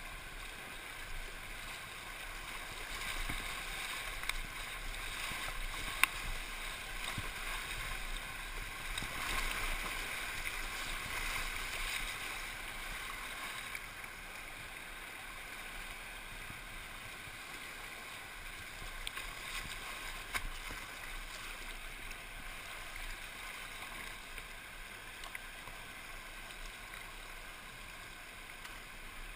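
Flood-swollen, muddy Deerfield River water rushing and churning around a paddled whitewater kayak, swelling louder about a third of the way through. One sharp knock about six seconds in, with a smaller one later.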